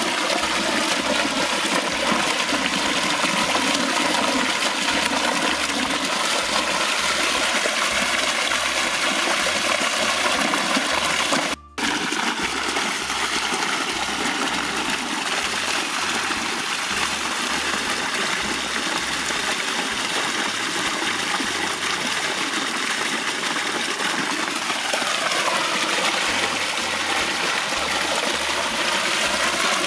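Water gushing up from a pipe outlet in the ground and splashing over hands and meat pieces being rinsed in the jet: a loud, steady rush, broken off for a moment about twelve seconds in.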